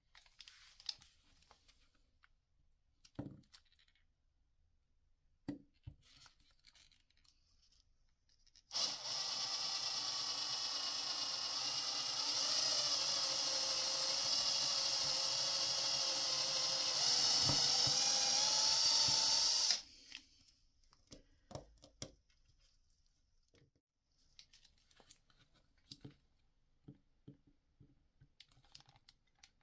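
A hand-held electric drill runs steadily for about eleven seconds, drilling a small pilot hole into a grey PVC pipe coupling and cap. It starts about nine seconds in, gets a little louder near the end of the run, and then stops abruptly. Light clicks from handling the part and drill come before and after.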